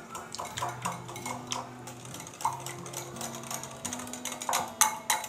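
Wire balloon whisk clinking rapidly against a glass mixing bowl while eggs and sugar are beaten, the loudest clinks coming near the end. Soft background music with held notes underneath.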